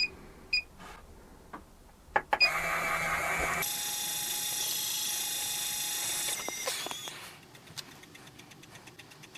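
Lyman Gen6 electronic powder dispenser: two short beeps as its touchscreen is pressed, then another beep and its motor whirring steadily for about four seconds as it throws a charge of N150 powder, changing pitch partway through. The whir dies away about seven seconds in to a faint, fast ticking as the last of the powder is trickled into the pan, heard sped up.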